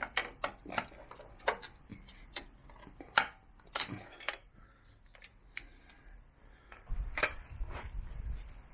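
Screwdriver tip clicking and scraping on the aluminium gearbox output housing of a BMW R1200GS as the rubber swing-arm boot is prised off: a string of sharp, irregular clicks, thickest in the first four seconds, with a few more and some low handling noise near the end.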